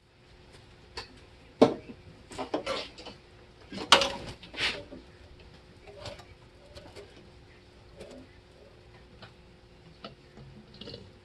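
Metal parts and tools clinking and clanking as the Sniper EFI throttle body is fitted onto the intake manifold: several sharp clanks in the first five seconds, then scattered lighter ticks.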